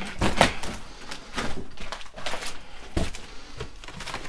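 Irregular knocks, scrapes and rustles of rubble and debris being stepped on and shifted about in a small, cluttered room.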